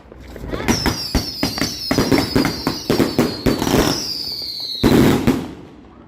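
Consumer fireworks going off: a rapid string of bangs and crackles, with several whistles that fall in pitch, and a louder cluster of bangs near the end.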